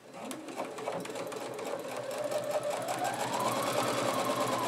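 Computerized electric sewing machine stitching a seam through bulky layers of fabric, its motor whine rising as it speeds up and starting to ease back down near the end, over rapid needle strokes.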